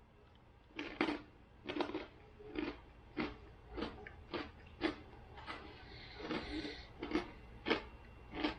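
Close-up chewing of a crunchy bagel chip loaded with smoked trout spread: a steady series of crisp crunches, a little under two a second, starting about a second in.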